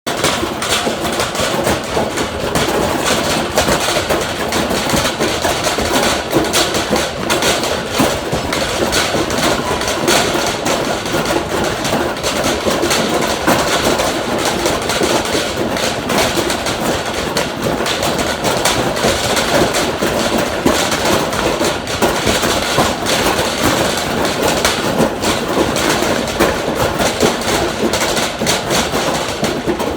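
Metal shopping cart being pushed, its wheels and frame rattling and clattering loudly without a break.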